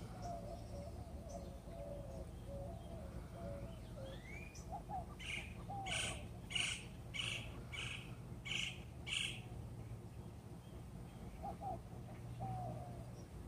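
A bird calling, a run of seven sharp, evenly repeated notes about two-thirds of a second apart in the middle, with softer warbling notes near the start and end, over a steady low hum.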